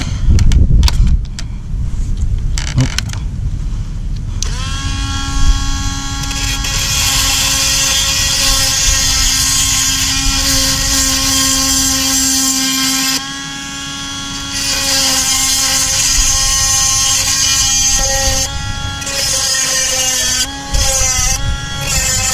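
Small 12-volt electric chainsaw sharpener spinning up about four seconds in, then whining steadily with a high grinding hiss as its stone grinds the chain's cutter teeth. The pitch dips briefly a few times near the end as the stone bears on a tooth.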